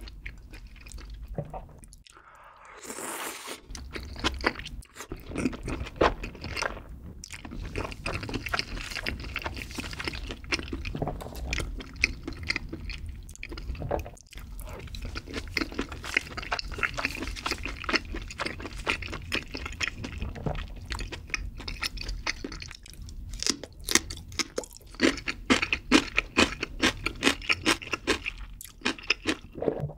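Close-miked chewing of soft rice cakes and wide pasta in a creamy spicy carbonara sauce: a dense, uneven run of wet mouth clicks and smacks.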